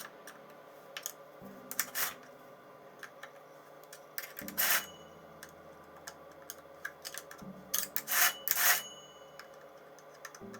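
Handling sounds: irregular rubs, scrapes and light clicks of hard parts being moved and turned over, with a few louder scrapes about two, four and a half and eight seconds in.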